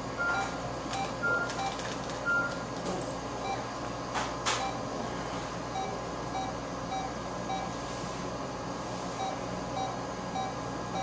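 Short electronic beeps from medical equipment in the procedure room, repeating about once a second over a steady equipment hum, with a few soft clicks about four seconds in.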